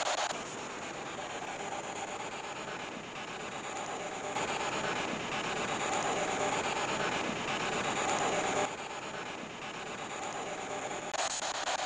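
Spirit box radio sweeping through stations: steady static hiss chopped into rapid clicks, stepping louder and quieter every few seconds.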